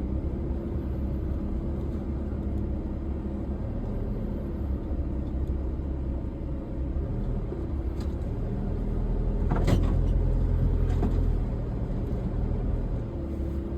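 A 4x4's engine and drivetrain rumbling steadily as the vehicle crawls through mud in four-wheel drive with traction control off. About two-thirds of the way through it gets louder for a few seconds, with a sharp knock near the loudest point.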